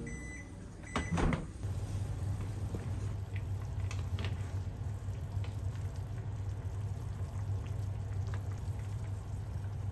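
A steady low hum with a few light clicks and taps scattered through it, and a couple of knocks about a second in.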